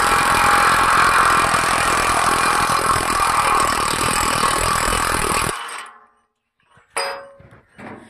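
A power tool, fitted with a socket on the centre screw of a bolt-type bearing puller, runs steadily with a fine rattle, driving the bearing out of a baler pulley. It stops about five and a half seconds in, and a sharp metal knock follows about a second later.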